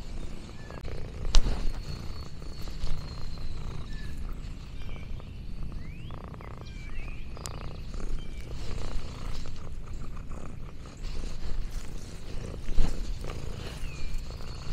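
Orange tabby cat purring close to the microphone, a continuous low fluttering rumble, with a few sharp clicks and thin high chirps over it.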